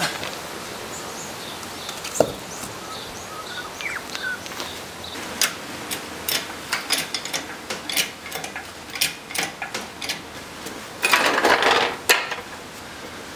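Irregular metallic clicks and clanks, with a sharp knock about two seconds in and a brief scraping rattle near the end: a wheel dolly being handled and set under a car tyre.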